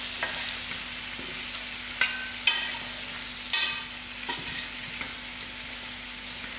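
Cubed potatoes frying in oil and masala in a stainless steel pot, sizzling steadily, as a metal spoon stirs them. The spoon clinks and scrapes against the pot a few times between about two and four and a half seconds in.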